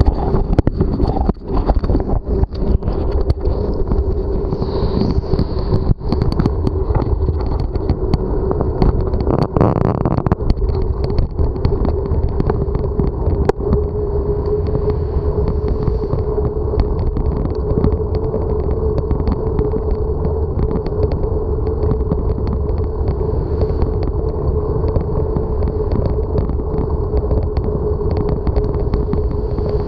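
Wind and rolling noise from a camera mounted on a moving bicycle, with a steady mid-pitched whine running under it. A string of sharp knocks and clatters in the first few seconds as the camera mount is handled and set upright.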